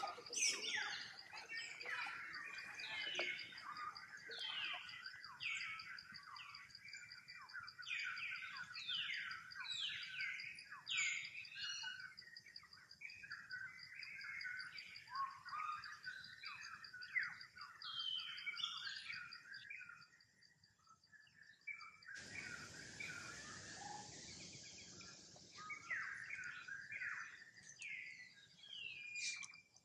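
Wild birds chirping in many short, falling calls over a steady high insect trill. About two thirds of the way in a rushing noise comes in, and the chirping carries on over it.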